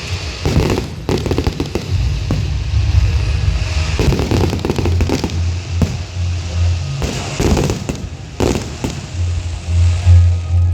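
Aerial fireworks bursting: a string of sharp bangs about one a second, with crackle between them, over loud music with a heavy bass.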